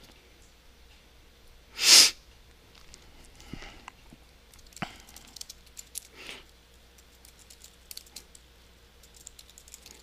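Computer keyboard typing: scattered light key clicks as commands are typed. About two seconds in, a short, louder breath noise close to the microphone.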